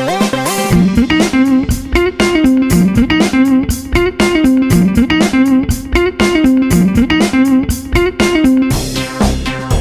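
Background music: an upbeat guitar tune with a bass line and a steady beat.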